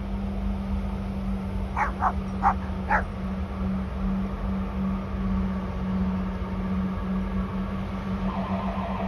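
A river vessel's steady, low, droning hum, with a dog barking four times about two seconds in. Near the end a fast pulsing, warbling sound starts up that sounds like an alien spaceship.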